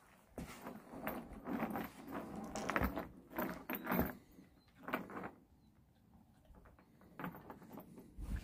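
A dog's metal tie-out chain rattling and dragging across wooden deck boards in irregular clinks as the dog moves about. It goes quiet for a moment past the middle, then clinks again briefly near the end.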